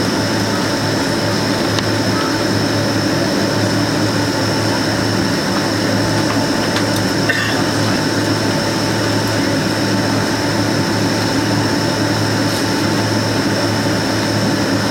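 Steady cabin noise inside a Boeing 767-300 taxiing: the jet engines running at low thrust as a constant low hum under a rush of air, with a thin steady high whine over it.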